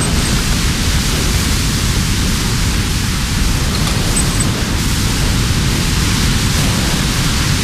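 Hurricane-force wind with driving rain: a loud, unbroken rush with heavy low buffeting of wind on the microphone.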